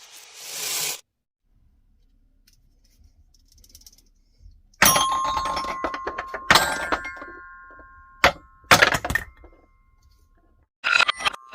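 Balls in a marble run hitting xylophone bars. A noisy rattle comes in the first second, then sharp clatters about halfway through, each leaving a few ringing notes. More clattering follows near the end.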